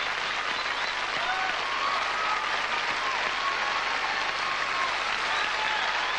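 Studio audience applauding steadily, with a few faint voices calling out in the crowd.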